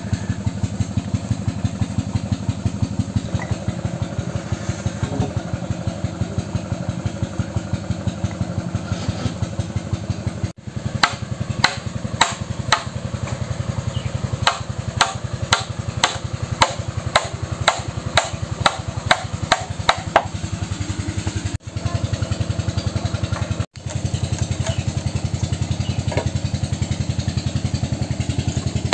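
Hammer driving an iron chisel into a bamboo pole to cut the holes for a bamboo ladder: sharp strikes about two a second for some ten seconds from about a third of the way in, then a few more near the end. Underneath, a small engine chugs steadily and evenly.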